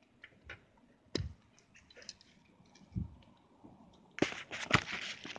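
A package being opened and handled: scattered taps, clicks and a dull knock, then from about four seconds in a dense crinkling rustle of packaging.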